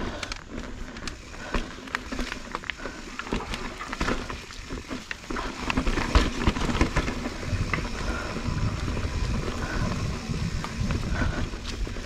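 Mountain bike riding over rocky dirt singletrack: tyres crunching and rattling over stones and roots, with the bike clattering and clicking over a low rumble. The knocks get louder and busier from about six seconds in, as the trail turns rockier.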